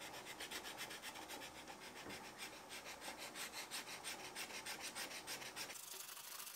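Steel scraper blade scraping the slimy lime-and-oil residue off a wooden rifle stock in quick, short, faint strokes, the lime having drawn out the grease the wood had soaked up. The scraping stops near the end.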